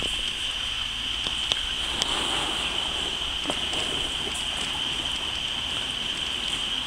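Gentle lake water lapping and splashing at a pebble shore, over a steady high-pitched hiss, with a couple of light clicks about a second and a half to two seconds in.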